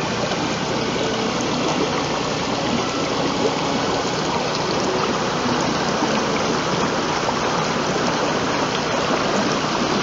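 Water of a shallow, rocky stream flowing over stones, a steady, even rushing.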